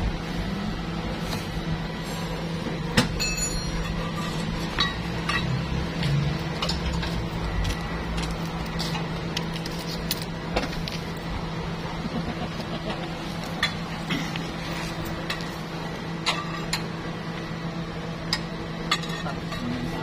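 Scattered metallic clinks and clicks of hand tools and parts over a steady low hum, the sharpest about three seconds in.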